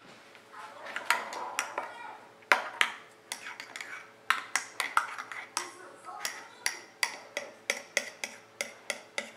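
Metal spoon stirring hot chocolate in a ceramic mug, clinking against its sides. A few scattered clinks come first, then from about four seconds in a quick, regular run of about three clinks a second.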